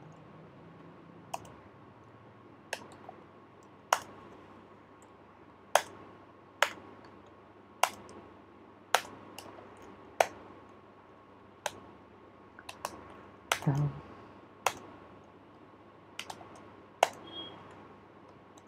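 Computer keyboard keys pressed one at a time, sharp separate clicks roughly a second apart with a short cluster past the middle, over a faint steady hum.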